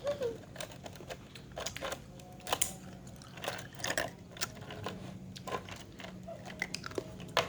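Ice cubes being crunched between the teeth: irregular crisp cracks and crunches.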